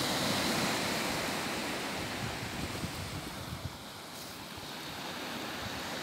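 Small sea waves washing onto a beach, a steady rushing noise, with wind buffeting the microphone.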